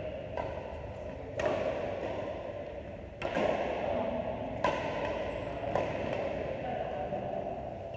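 Badminton racquets hitting a shuttlecock in a rally, four sharp hits about one to two seconds apart, each echoing briefly in the hall.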